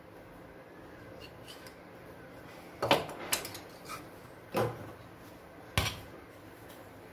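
Steel spoon clinking against kitchen dishware while scooping mint chutney paste: about five sharp clinks spread over some three seconds.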